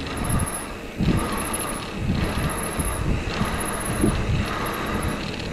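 Wind buffeting the microphone of a bicycle in motion, with gusty low rumbling and steady rushing road noise.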